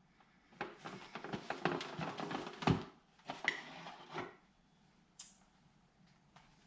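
Handling noise from a plastic electric surf fin and its packaging: a flurry of small clicks, knocks and rustles for about four seconds, then a short hiss, then quiet.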